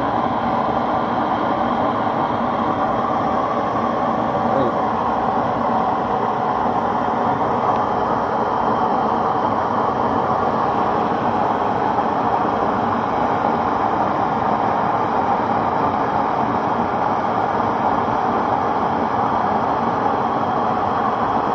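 Homemade burner stove running at full power with a steady, even rushing noise of flame.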